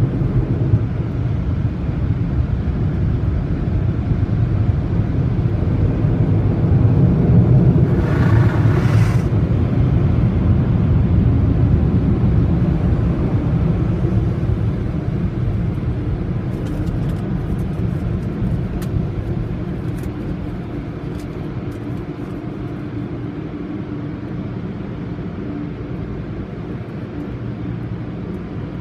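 Car wash dryer blowers and tunnel machinery heard through the car's closed cabin: a steady low roaring rumble that swells about a quarter of the way in, with a brief hiss at its peak, then slowly eases off as the car rolls out of the tunnel.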